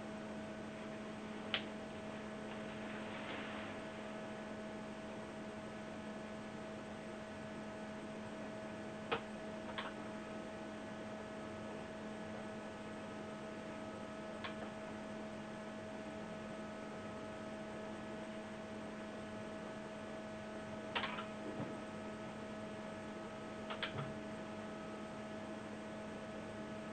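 Steady electrical hum, with a few short, sharp clicks scattered through it.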